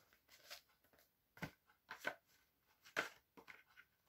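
Faint clicks and rustles of a plastic DVD case being handled as its disc trays are turned over, with a few sharper clicks, the loudest about one and a half and three seconds in.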